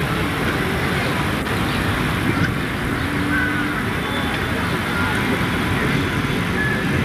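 Steady outdoor background noise, a dense low rumble and hiss, with faint distant voices and a few short high chirps.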